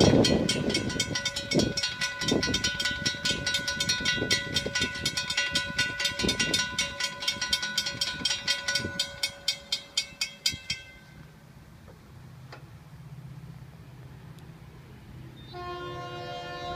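Grade-crossing bell ringing fast and steadily while the gate arm comes down, cutting off about eleven seconds in. Then the low rumble of approaching diesel freight locomotives, and near the end the lead locomotive's multi-tone air horn sounding.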